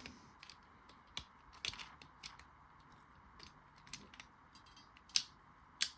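Scattered light clicks at uneven spacing from a hand crimping tool closing on a coax connector's ferrule, the sharpest near the end.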